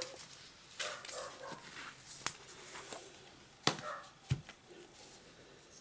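Faint clicks, taps and rustles of paint cups and bottles being handled while acrylic paint is layered into a pour cup, with a few sharp clicks and a soft thump about four seconds in.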